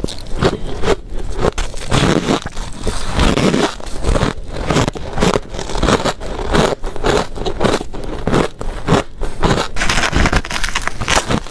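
Close-up crunching of hard ice being bitten and chewed: a dense, unbroken run of crisp crunches. Near the end she bites into a large chunk of frosty ice.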